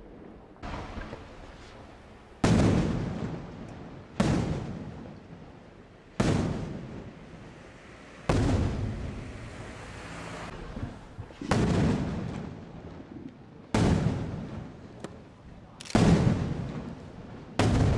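Aerial firework shells bursting, about nine sharp reports a couple of seconds apart, each trailing off in a long echo.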